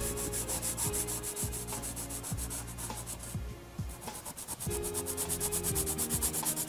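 Graphite pencil hatching on paper: quick back-and-forth scratching strokes, several a second, with a brief pause a little past halfway.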